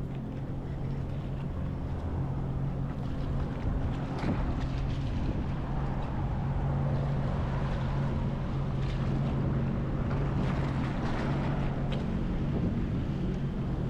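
2021 Sea-Doo FishPro jet ski's engine idling with a steady low hum, with wind buffeting the microphone.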